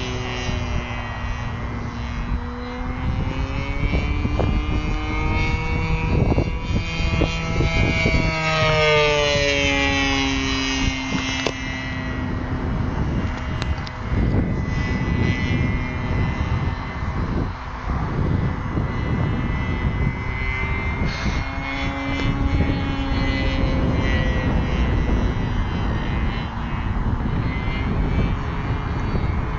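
Single-cylinder two-stroke MVVS 26cc petrol engine of a large radio-controlled P-47D Thunderbolt model in flight. The engine tone falls and rises several times as the plane flies.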